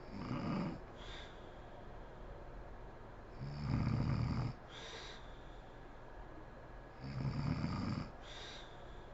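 A sleeping woman snoring: three snores about three and a half seconds apart, each a low-pitched breath followed by a brief higher sound.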